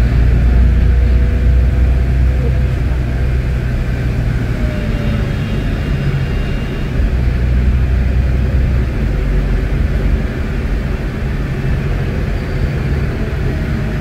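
Volvo D8K six-cylinder diesel engine of an articulated city bus running under way, heard inside the passenger cabin as a loud low rumble with road noise. The rumble swells and eases a few times.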